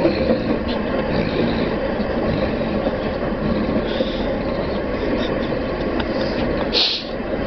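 Steady rumble of a moving train heard from inside a carriage, with a few short hisses, the loudest about seven seconds in.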